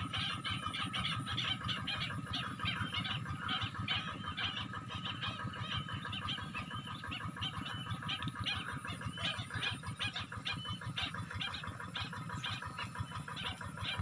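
A flock of birds in a rice paddy calling in a dense, continuous chatter of short chirps, many a second, over a steady low rumble.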